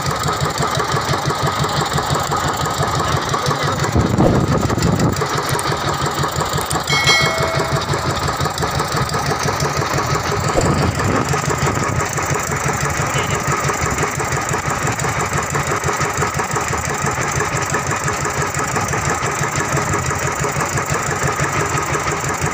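Fishing boat's engine idling steadily with a fast, even pulse.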